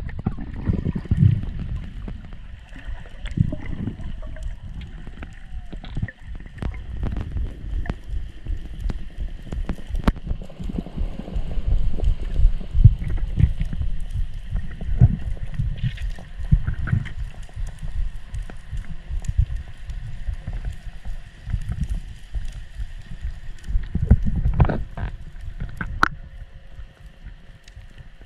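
Underwater sound picked up through a diving camera's housing: a low rumbling wash of water with scattered sharp clicks, swelling louder for a moment near the end.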